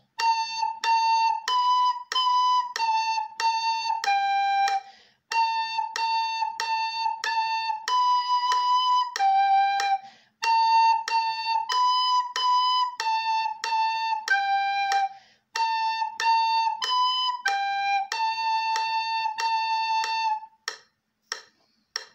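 Soprano recorder playing a simple tune on just three notes, A, B and G, in steady even notes and longer held ones, in four short phrases with brief breaks between them. A steady click about twice a second keeps time throughout and runs on for a moment after the last note.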